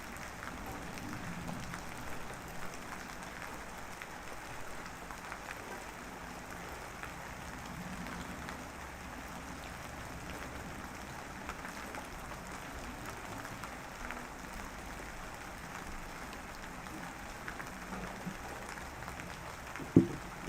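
Light drizzle falling steadily: an even hiss with a fine patter of drops. Near the end come two loud, dull thumps in quick succession.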